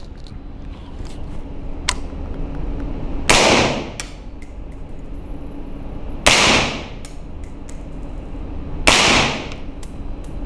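Three suppressed rifle shots from a 16-inch 5.56 AR-15 wearing an OtterCreek Labs Polonium suppressor, about three seconds apart, each a sharp report that rings out briefly off the concrete walls of the indoor range. The first shot carries the first-round pop and was metered louder than the two after it.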